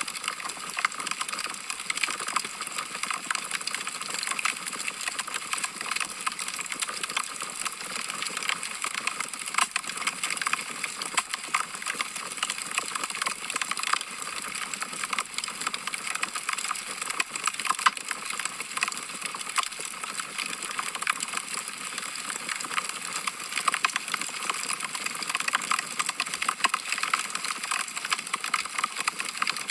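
Wood fire in a fireplace crackling: a continuous, irregular stream of small snaps and pops.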